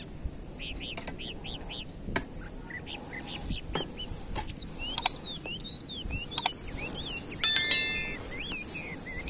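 Small birds chirping over and over, with scattered taps and scrapes of a small metal hand trowel working loose moist soil in a plastic seed tray. Near the end a short metallic clink rings out, and water begins spraying onto the soil.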